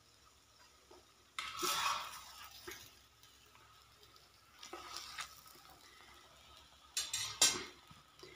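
A cooked paratha being lifted off a hot tawa with a spatula and moved to a serving plate: three short spells of scraping and clattering of utensil and plate, with quiet gaps between them.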